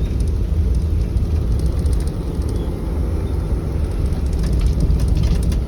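Steady low rumble of a vehicle running, with faint scattered ticks over it.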